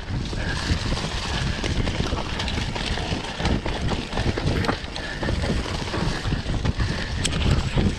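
Enduro dirt bike engine running while the bike is ridden, with heavy wind buffeting on the microphone.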